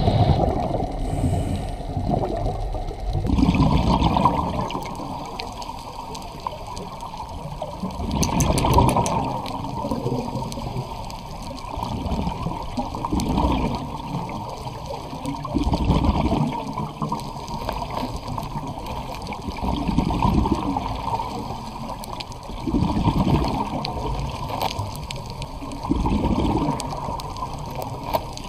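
Underwater gurgle of a scuba diver's exhaled bubbles, swelling in bursts about every three to four seconds over a steady wash of water.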